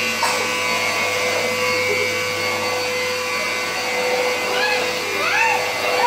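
Canister vacuum cleaner running steadily, a continuous motor hum with a steady whine.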